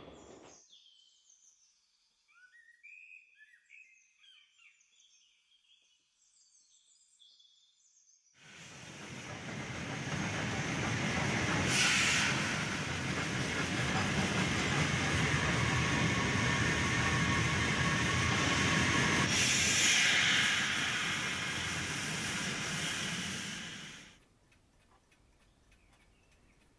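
Faint birdsong, then a steam train with carriages running past: the train sound starts abruptly about eight seconds in, holds steady with brighter hissing moments twice, and cuts off a few seconds before the end.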